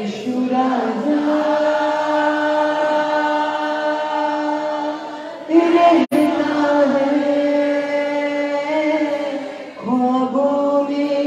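Hindi Christian worship song sung with long, drawn-out held notes, led by a man singing into a microphone with the congregation joining in. The sound cuts out for an instant about six seconds in, and a new line begins near the end.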